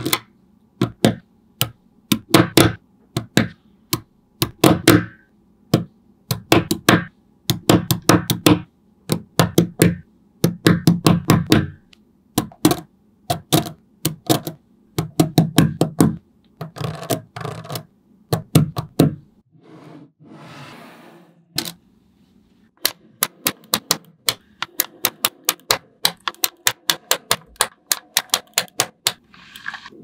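Small magnetic metal balls clicking as they snap onto one another and onto a block, in quick runs of sharp clicks. About two-thirds through there is a short softer hiss, followed by steadier, evenly spaced clicks.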